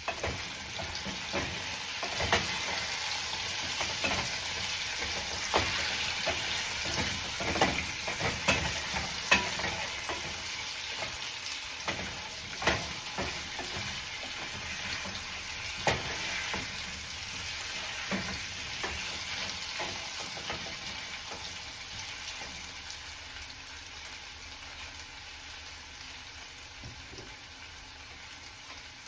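Potatoes sizzling as they fry in hot oil in a pan, with scattered sharp clicks and scrapes of a utensil stirring them. The sizzle gradually dies down over the last third.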